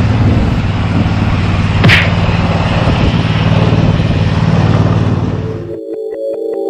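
An engine running loudly and steadily, with a sharp crack about two seconds in, cut off abruptly near the end as synth music begins.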